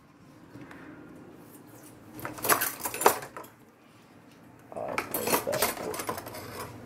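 Ceramic plate and metal cutlery clinking and clattering: a few sharp clinks two to three seconds in, then a busier run of clatter about five seconds in.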